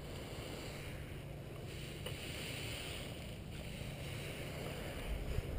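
Wind buffeting the microphone: a steady low rumble with a hiss over it, and a couple of short knocks near the end.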